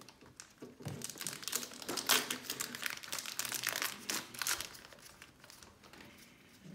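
Foil wrapper of a Pokémon Sun & Moon booster pack crinkling as it is worked open by hand. It is a dense run of crackles that thins out after about four and a half seconds.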